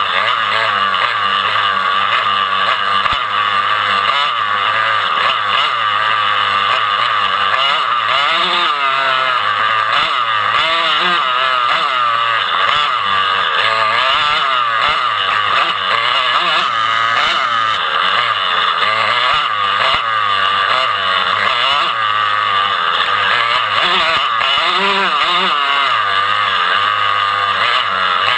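Dirt bike engine heard close up from on the bike, running loud and continuously as it is ridden, its revs rising and falling every second or so.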